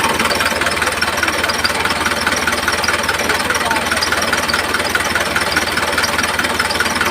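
Small electric motor of a homemade model tractor running steadily, with a fast, even rattle.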